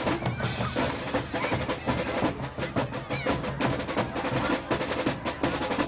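Marching band drumline playing a fast rhythm on snare and bass drums, the drum strokes dense and continuous.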